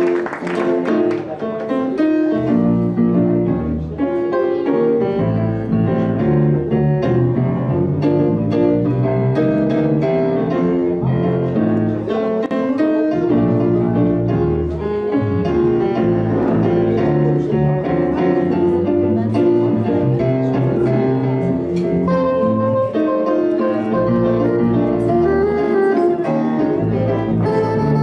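Grand piano playing a continuous melodic passage over a double bass line.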